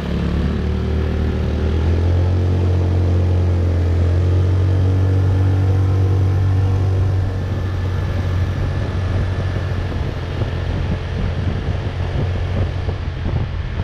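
Motorbike engine running under throttle on the move, a steady low drone whose pitch rises slightly over the first few seconds, mixed with road and wind noise. About seven seconds in the throttle eases and the engine note drops and quietens.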